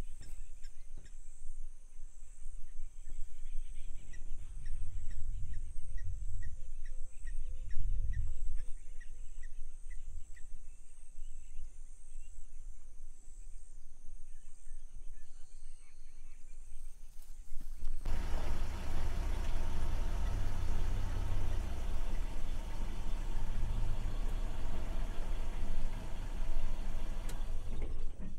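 Open-air field ambience: a low rumble with a bird calling in a steady series of short high notes, about two a second. About two-thirds of the way in, a louder steady rushing noise takes over abruptly.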